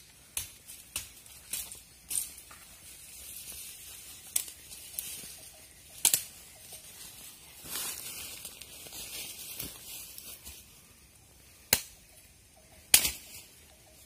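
Scattered sharp clicks and cracks, the loudest two about a second apart near the end: a PCP air rifle firing at a green pigeon, a shot that hits the bird in the head. A faint high hiss sits underneath.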